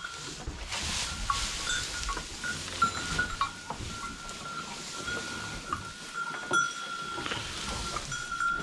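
Dry hay rustling and crackling as it is grabbed and pushed into a cattle feed trough, with scattered small knocks. A thin, steady high tone runs through it.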